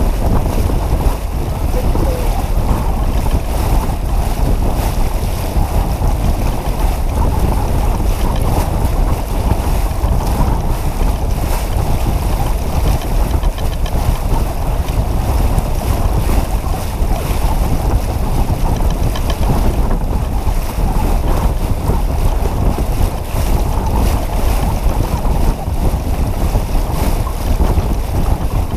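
Wind buffeting the microphone over water rushing along the hull of a sailboat heeled under sail: a steady, rough noise.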